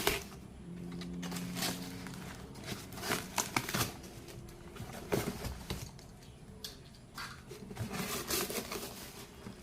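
Packaging being handled and opened by hand: crinkling and tearing, with scattered clicks and rustles.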